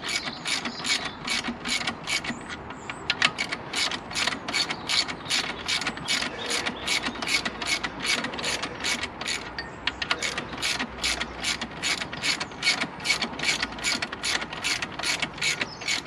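Hand socket ratchet clicking steadily as it winds in an alternator mounting bolt, about three clicks a second. The bolt is being run in to draw its captive nut tight against the engine block.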